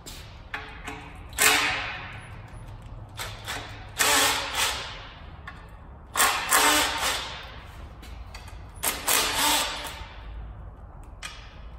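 Cordless power tool run in short bursts, each under a second, four times with pauses between, backing out the bolts of a Toyota 2JZ engine's lower oil pan.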